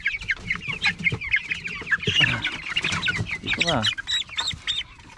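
A flock of young native chicks, about three weeks old, peeping busily at feeding time, many short high calls overlapping, thinning out near the end. One lower, falling call stands out past the middle.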